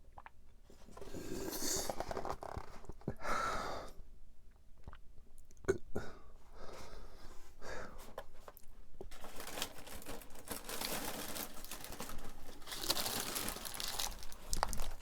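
Close-miked chewing and crunching of flaky tart pastry, in two long bouts of crisp, crackly bites with scattered sharper crunches between them.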